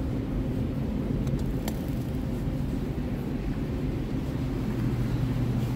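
Steady low hum of supermarket background noise, with a few faint clicks about a second and a half in.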